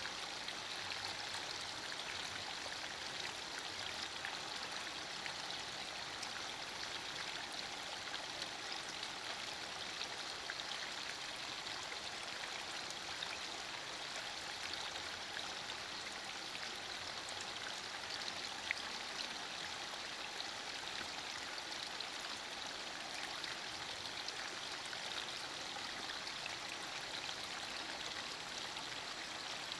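Heavy rain falling steadily on broad leaves, with many small drop ticks through the hiss and one sharper drip about two-thirds of the way through.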